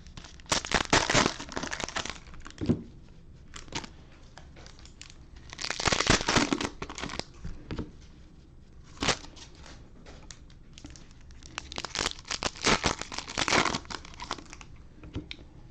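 Plastic cellophane trading-card pack wrappers being torn open and crinkled by hand, in several separate bursts of crackling with short quiet gaps between.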